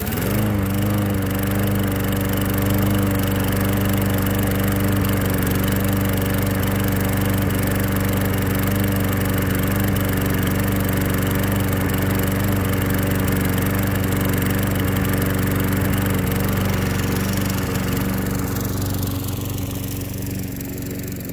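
Walk-behind lawnmower's gasoline engine catching as a cordless drill spins it over, rising quickly to speed and then running steadily. The sound grows a little fainter near the end.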